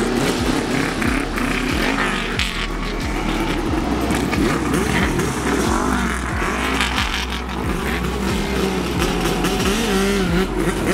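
Several classic Japanese motorcycle engines running together, their riders blipping the throttles so that the pitches rise and fall again and again, over a steady low rumble.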